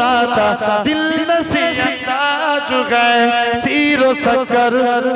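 A man singing an Islamic gojol into a microphone, drawing out long, wavering, ornamented notes without words.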